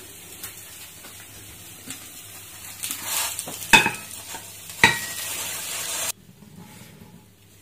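Sizzling from a hot non-stick frying pan, with a few knocks and a scrape as a pan-fried Maggi noodle pizza is slid out of the pan onto a plate. The sizzle cuts off suddenly about six seconds in.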